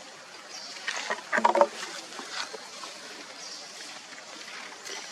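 A monkey gives a short pitched cry about a second and a half in, with a few faint clicks and rustles around it.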